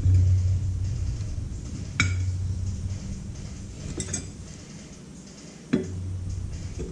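Metal clinks and a few sharp clicks as tools and the threaded adjuster of a Spohn adjustable lower control arm are handled, over a low steady hum that drops away in the middle and comes back near the end.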